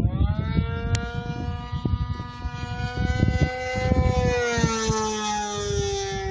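OS .55AX two-stroke glow engine of an RC plane running at full throttle, a steady high-pitched whine through a Pitts-style muffler that rises in pitch at first and then drops as the plane passes by, about four to five seconds in. Wind rumbles on the microphone underneath.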